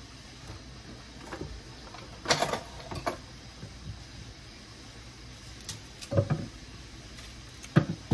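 Kitchen knife cutting and peeling green plantains on a wooden cutting board: a few short, sharp knocks and scrapes, the loudest about two seconds in and near the end, over a faint steady hiss.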